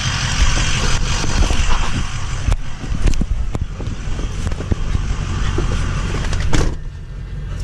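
Pickup truck idling, with knocks and clunks as someone climbs into the cab. The door slams shut near the end, and the sound turns muffled and quieter.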